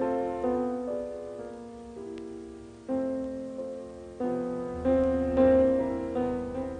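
Background music: a slow piano piece, chords struck one after another and each left to fade.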